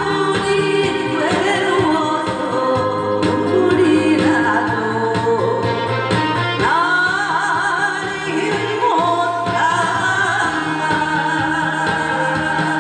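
A woman singing a song into a stage microphone over instrumental accompaniment, her voice wavering and sliding on held notes.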